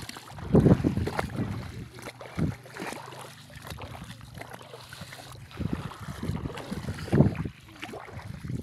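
Wind gusting on the microphone over shallow tidal water, in uneven low rumbling surges, with soft sloshing as someone wades through ankle-deep water over seagrass.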